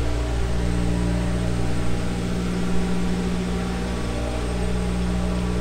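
A car engine running at a steady speed: an even, unbroken drone with a low hum.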